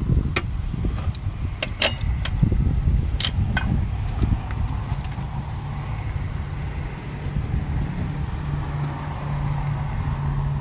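A few sharp metallic clinks of hand tools against metal in the first few seconds, over a steady low hum.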